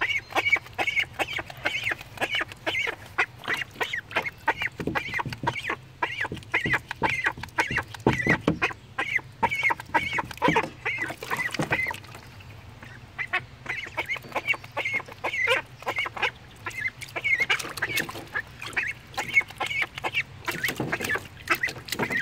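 Young ducks calling with a rapid run of short, high-pitched peeps, several a second, with a brief pause about halfway through.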